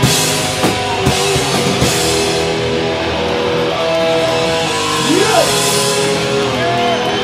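Melodic hardcore punk band playing live and loud: distorted electric guitars, bass and drum kit, with hard drum hits in the first two seconds, then ringing guitar chords and a sliding note about five seconds in.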